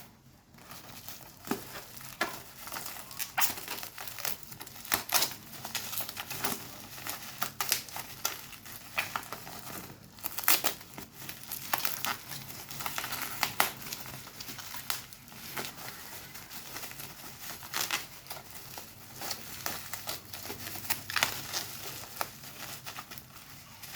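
Phone packaging crinkling and rustling as it is handled and unwrapped, with many irregular sharp crackles.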